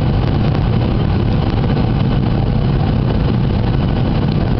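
Airliner cabin noise during final approach: the jet engines and airflow making a loud, steady low drone with a fainter hiss over it.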